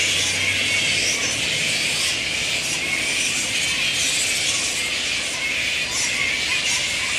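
A roosting colony of grey-headed flying foxes, a dense continuous chatter of many overlapping high calls from the trees.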